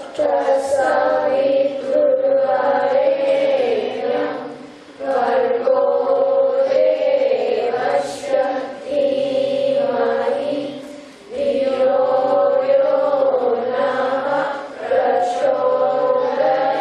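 A group of voices chanting a Hindu mantra in unison, in long held phrases that break briefly about four and a half and eleven seconds in.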